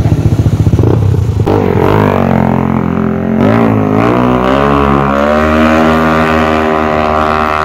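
Yamaha NMAX scooter's single-cylinder engine, bored out to 230cc with a JVT 26x23 head, chugging at idle and then revving up as the bike pulls away. Its pitch climbs and wavers before settling into a steady drone.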